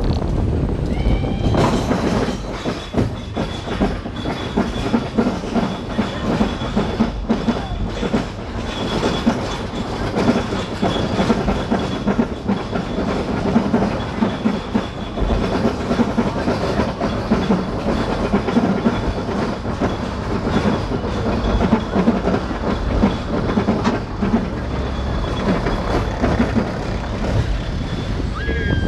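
Arrow Dynamics steel roller coaster train clattering steadily along its track, with a constant rattle of clicks and a low rumble.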